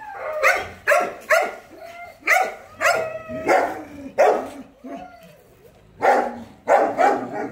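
Kennelled dogs barking: a run of short, sharp barks about every half second, with a pause of about a second just after the middle.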